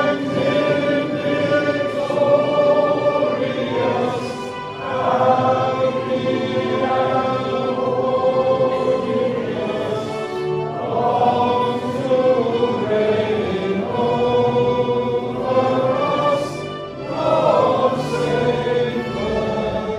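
A hymn sung in chorus by many voices, in phrases of about six seconds with short breaths between them.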